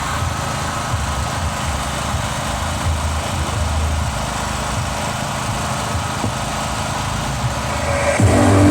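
A steady low rumble of engines running. About eight seconds in, a loud, bass-heavy sound system starts playing.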